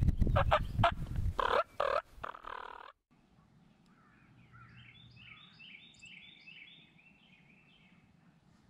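Wild turkey gobbling: a loud, close, rattling gobble for the first few seconds that cuts off abruptly. A fainter, distant run of rapid gobbling notes follows.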